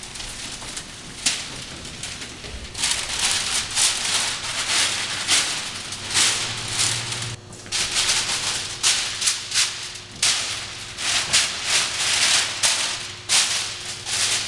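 Rustling, rattling noise in many short, irregular bursts, about one or two a second.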